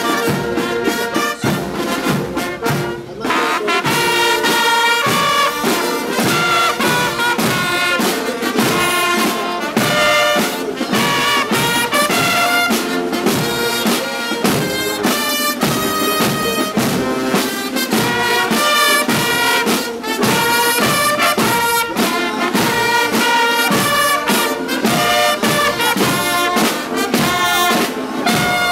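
Military marching band playing a martial march: trumpets and trombones carry the tune over steady drum beats.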